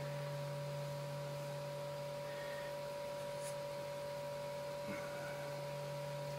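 A steady electrical hum made of a few constant tones, with two faint soft taps, one midway and one about five seconds in.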